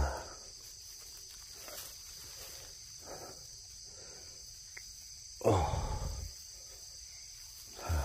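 A gloved hand scrapes and brushes loose forest soil away from a plant's roots, giving soft rustling with a few louder scrapes. The loudest comes about five and a half seconds in. A steady high insect drone runs behind.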